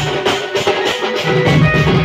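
Live band party music: drums and percussion beating a fast, even rhythm under a held melody from the band's melodic instruments.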